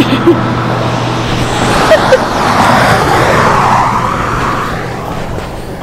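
A car passing by: a steady low hum stops a little before two seconds in, then a wash of car noise swells and fades away.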